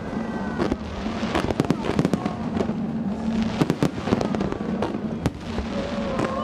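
Aerial fireworks bursting in quick, irregular succession: many sharp bangs and crackles, several a second, over a steady low hum.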